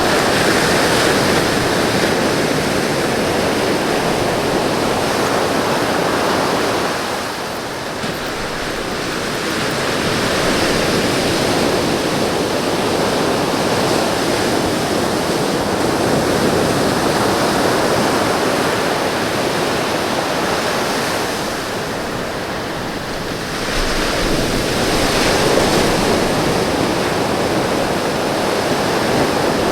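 Ocean surf breaking on the shore: a steady rushing wash of waves that eases off twice, at about seven and twenty-two seconds in, then builds again.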